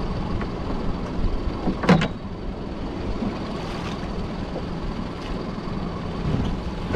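A small fishing boat's motor running steadily under wind and sea noise, with one sharp knock about two seconds in as a lobster pot is hauled.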